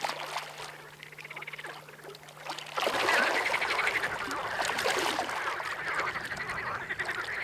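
A dense chorus of animal calls starts suddenly about three seconds in, loud and continuous, after a quieter opening with a low steady hum.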